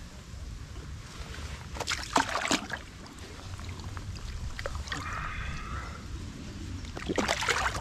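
Water splashing and sloshing at a float tube, in two short bursts of strokes, about two seconds in and near the end, over a steady low rumble.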